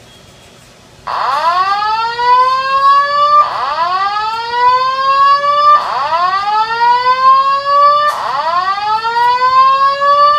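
Building fire alarm's voice-evacuation system sounding its whoop tone: four loud rising whoops, each about two seconds long, starting about a second in. The alarm was set off by burnt dinner.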